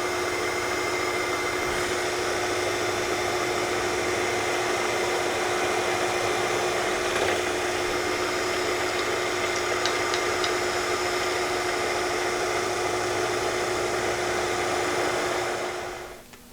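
Milling machine running steadily with a held motor tone, cutting a small steel part; it winds down and stops near the end.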